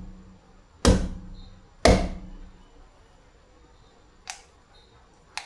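Hard knocks of a cacao pod being struck to crack it open: two loud blows about a second apart, then a fainter knock near the end.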